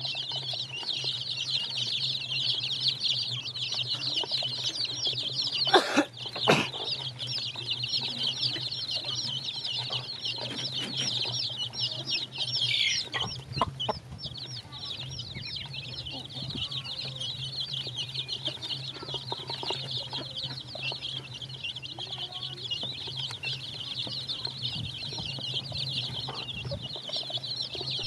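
A brood of chicks peeping nonstop, many rapid high chirps overlapping, with a couple of sharp knocks about six seconds in.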